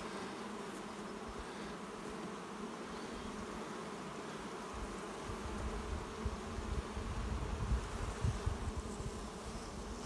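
Honeybees humming steadily from an open, crowded hive box, with a low rumble coming in about halfway through.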